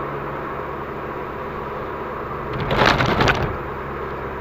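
Cabin noise of a VW Golf V GTI driving slowly on a circuit: a steady engine and road drone. About two and a half seconds in, a loud rattling burst lasts under a second.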